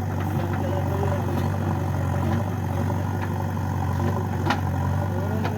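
Heavy diesel engine running steadily at low revs, a low even hum, with a couple of short clicks near the end.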